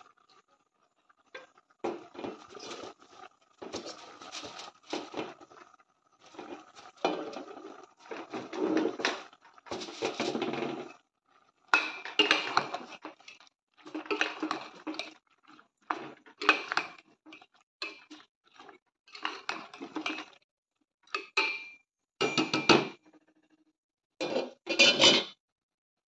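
A metal spoon stirring food in a metal pot. It scrapes and clinks against the pot in a long run of short, irregular strokes.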